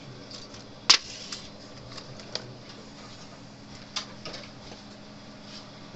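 A few irregular sharp clicks and taps, the loudest about a second in, over a steady low hum.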